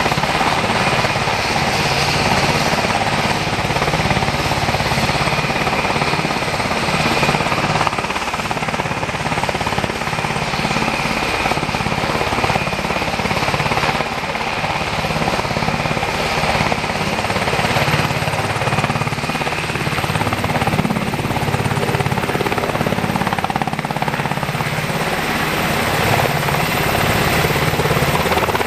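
UH-60 Black Hawk military helicopter running on the ground with its main rotor turning, a steady loud rotor beat over turbine whine. The whine edges up in pitch about two-thirds of the way through, and the helicopter lifts off near the end.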